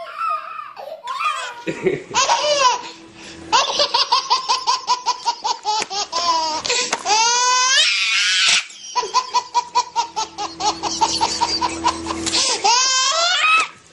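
A baby laughing hard in long, rapid runs of high-pitched belly laughs, catching her breath between the runs.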